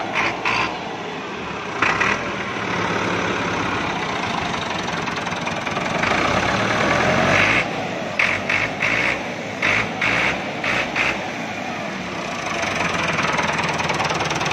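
Massey Ferguson tractor's diesel engine idling steadily, with a run of short louder bursts a little past the middle.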